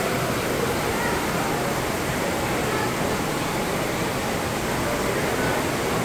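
Steady rushing hiss of an aquarium exhibit's waterfall splashing into the tank.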